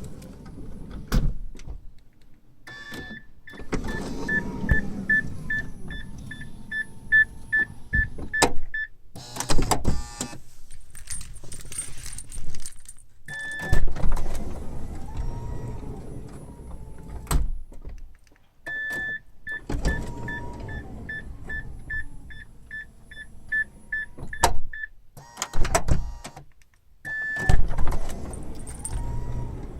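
Nissan Dayz Roox power sliding door being cycled twice: its motor runs with a whine while the door's warning buzzer sounds in rapid, evenly spaced beeps, and each cycle ends in loud clunks and rattles as the door reaches its stop and latches. The door on the passenger (left) side makes a strange noise that the owner says is clearly different from the right-hand door.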